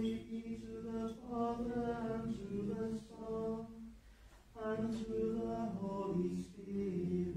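Unaccompanied liturgical chant: voices singing two phrases of held, stepping notes, with a short pause about halfway through.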